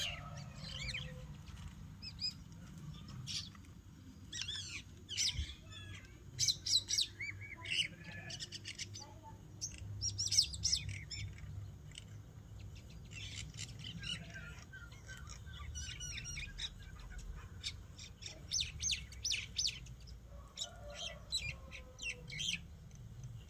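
Birds chirping: many short, high chirps in quick clusters, coming and going throughout, over a steady low hum.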